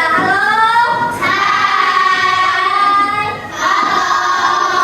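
Children singing together, high voices holding long notes that slide up and down in pitch, with a short break about three and a half seconds in.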